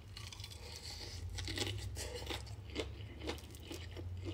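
Chewing a mouthful of crisp fried chicken close to the microphone, with crunches about twice a second.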